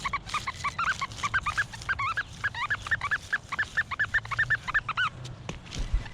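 XP Deus metal detector with a high-frequency coil giving pitch-tone responses as the coil sweeps over iron-filled ground: a fast run of short beeps that rise and fall in pitch, about six a second, stopping about five seconds in. A couple of sharp knocks follow near the end.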